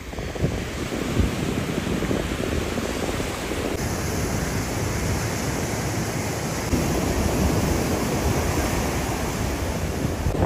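Surf washing onto a sandy beach, mixed with wind buffeting the microphone: a steady rushing noise with no distinct events. The noise shifts abruptly in character about four seconds in, turning brighter and hissier.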